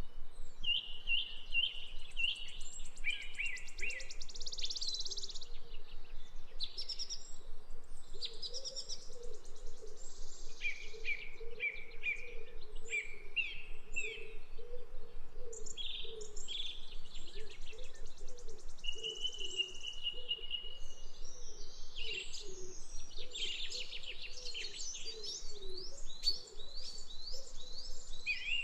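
Several birds chirping, with many short high calls overlapping and coming thick and fast throughout. A lower call repeats steadily underneath.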